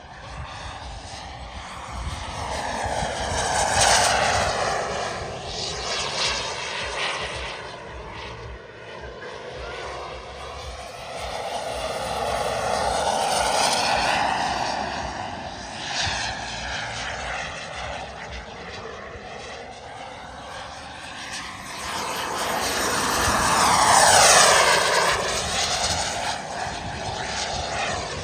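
JetCat 180 model jet turbine of a large Albatros L-39 RC jet, a steady whine and rush that swells and fades three times as the jet passes, loudest about 4, 13 and 24 seconds in, the pitch sliding down after each peak.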